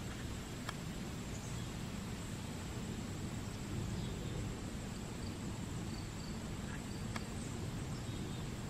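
Steady outdoor ambience: a low, even rumble under a constant high insect drone, with a few faint short chirps.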